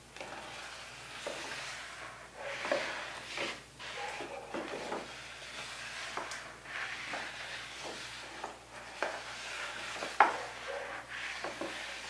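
Developer solution sloshing and swishing in a tub as a large sheet of photographic paper is pushed back and forth through it by gloved hands, in uneven swells with a few small knocks against the tub. The sharpest knock comes near the end.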